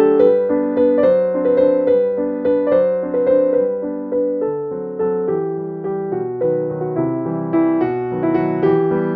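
Background music: a piano playing a gentle melody of quickly struck notes.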